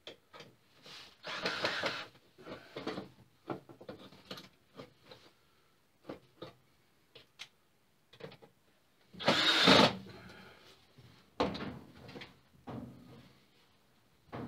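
Handling noise from a grid-tie inverter being hung on screws against a plywood board: scattered knocks, clicks and short scrapes as its mounting notches are slid behind the washers. One louder, harsher noise lasting under a second comes about nine seconds in.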